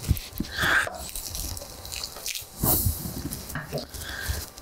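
Wheel pizza cutter rolling through a crisp tortilla pizza crust on a wooden board, the crust crackling in a few separate bursts.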